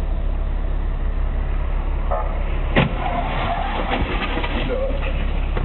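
Steady low rumble of a car's engine and road noise picked up by a dashcam, then about three seconds in a sharp crash as a car slams into the kerb, followed by a second or two of crunching and scraping.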